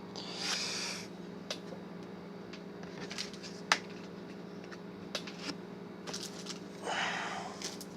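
Trading cards and their pack handled by hand: a papery rustle about half a second in and again near the end, with scattered light clicks and one sharper tap a little past the middle, over a steady low hum.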